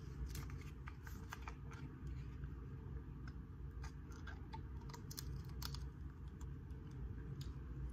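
Plastic cap and seal of a tahini squeeze bottle being picked at and pulled open by hand: scattered small clicks and crinkles over a steady low hum.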